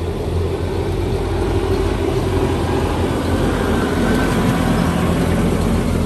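A large motor vehicle's engine running close by: a steady, loud low hum over traffic noise.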